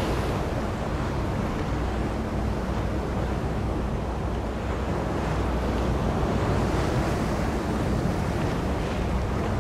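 Steady wash of choppy open sea with wind buffeting the microphone, a constant rushing noise with a deep rumble underneath.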